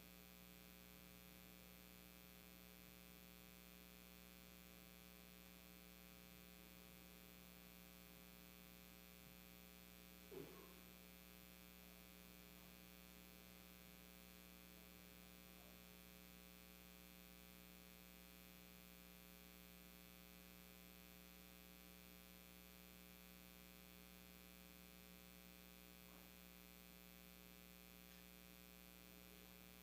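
Near silence: a steady electrical mains hum, with one faint short sound about ten seconds in.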